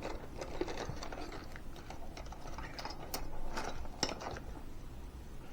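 Irregular light clicks and taps of a precision screwdriver and its bits being handled and tried on a small screw in a plastic housing.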